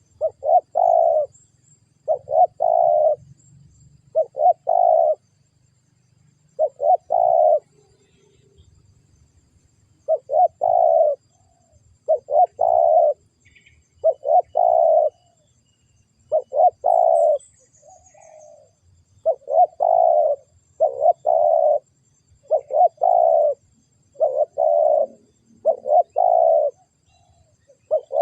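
Spotted dove cooing: a long string of repeated short coo phrases, each a couple of quick notes run into a longer one, about one every one and a half to two seconds, with two brief pauses.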